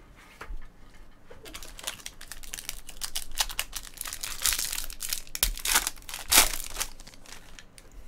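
Foil trading-card pack wrapper being torn open and crinkled by hand, a run of sharp crackles and tearing that is loudest about six seconds in, then dies down as the cards come out.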